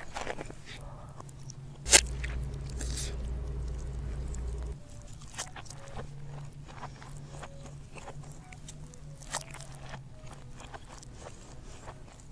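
Close-miked mukbang eating sounds of spicy instant noodles, played in reverse: a string of small wet mouth clicks and chewing noises. A sharp smack about two seconds in is the loudest moment; a low rumble follows it for nearly three seconds and cuts off suddenly.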